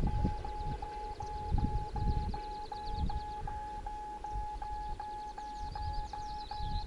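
Wind gusting on the microphone in irregular low rumbles, with small birds trilling high and quick, and a steady beeping tone that repeats about two and a half times a second.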